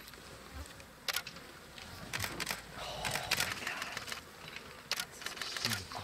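White-backed vultures dropping onto a buffalo carcass: wings flapping with scattered sharp clicks, and flies buzzing around the carcass.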